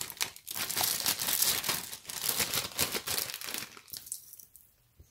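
Clear plastic zip-top bag crinkling and rustling as a faux pearl necklace is pushed into it, dying away about four seconds in.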